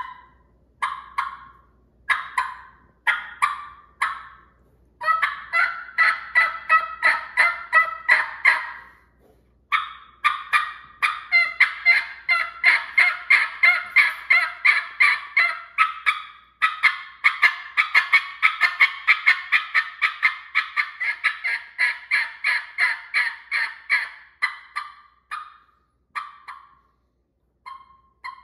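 Wild turkey hen calls made on a raspy three-reed batwing latex diaphragm mouth call. A few single notes about a second apart lead into long runs of raspy yelps at about three notes a second, which thin out to scattered single notes near the end.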